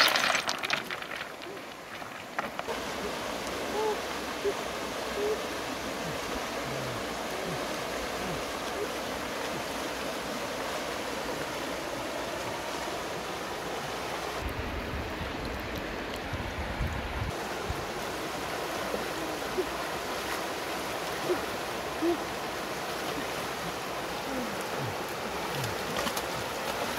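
Steady rush of a fast-flowing river, with a few seconds of low rumble about halfway through.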